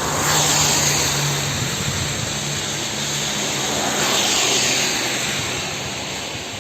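Two road vehicles driving past one after the other, their tyre hiss and engine noise swelling and fading: the first passes right at the start and the second about four seconds in, over a low engine hum.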